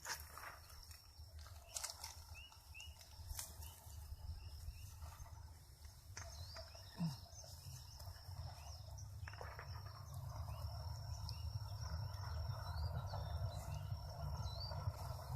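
Outdoor ambience: small birds chirping over and over, a steady thin high insect tone, and a few scattered clicks. A low rumble grows louder about two-thirds of the way through.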